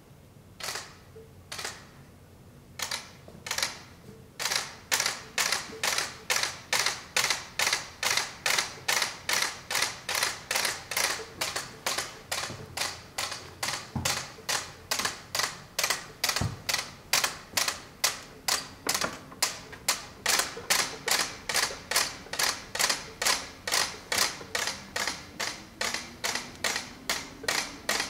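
Telegraph keys tapped by fingers, each press a sharp metallic click. A few scattered taps at first, then a steady tapping of about two and a half clicks a second.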